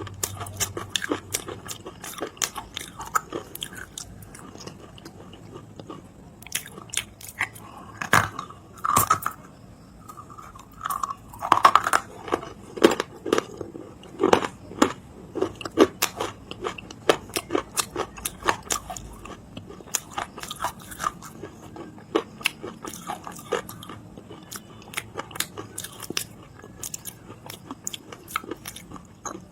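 Close-up biting and chewing of dry edible clay, crisp crunches and crackles one after another, loudest and densest around the middle.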